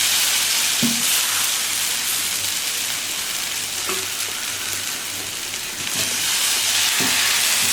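Thin ragi rava dosa batter sizzling as it is poured onto a hot griddle, a steady hiss with a few soft knocks.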